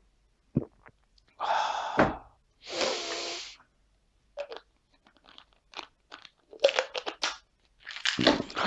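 Tablets being handled: crunching and crinkling in several short bursts, with scattered small clicks between them and the loudest burst near the end.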